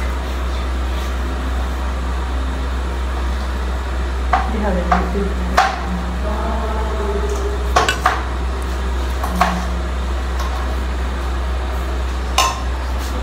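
A metal spoon clinking and scraping a few times as it scoops momo filling onto wrappers, over a steady low hum.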